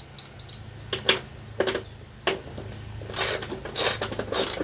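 Hand ratchet with a 10 mm socket loosening a bolt: a few single clicks, then three short quick runs of ratcheting near the end.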